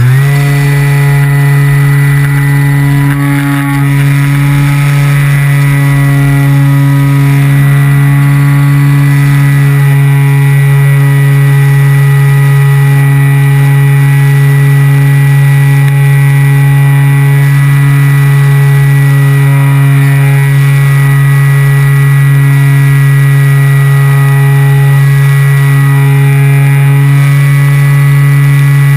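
Electric motor and propeller of a Sonic 185 RC motor glider, heard from a camera on the plane, running steadily at one constant pitch: a loud, even buzz.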